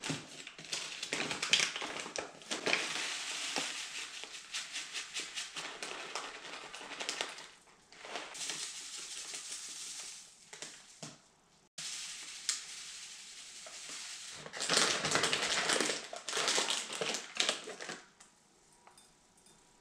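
Dry muesli ingredients (oat flakes, seeds and nuts) shaken from packets into a porcelain bowl, with the plastic packets crinkling. It comes in three spells of rustling and pattering with short breaks between them.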